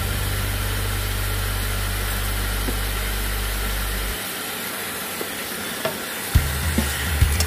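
Baby bok choy sizzling in a hot pan, then stirred and tossed with a wooden spatula, with knocks and scrapes against the pan in the last second or two. A steady low hum runs under it and drops out for a couple of seconds around the middle.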